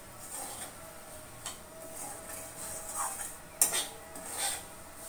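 A metal spatula scraping and clinking against a metal kadai as semolina is stirred and dry-fried. There are several irregular scrapes, the sharpest about three and a half seconds in.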